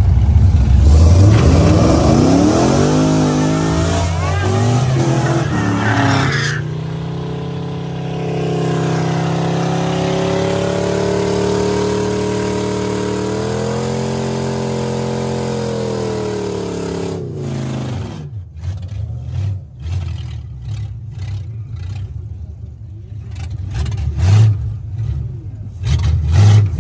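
Drag-racing cars, a Chevrolet Camaro against a Ford Mustang, launching off the line and accelerating hard, the engine note climbing through the first few seconds. The engines then hold a high steady note at speed and fall away about eighteen seconds in, leaving uneven low rumbling.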